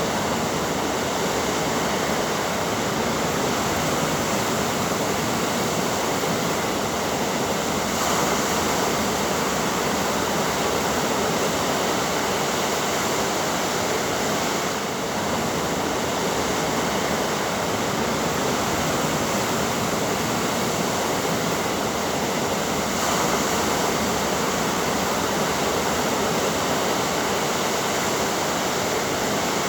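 Ocean surf: a steady wash of breaking waves with no clear break between them, swelling slightly twice.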